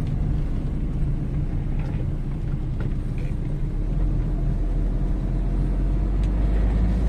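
Car engine and road noise heard from inside the cabin while driving: a steady low rumble that grows stronger about four seconds in.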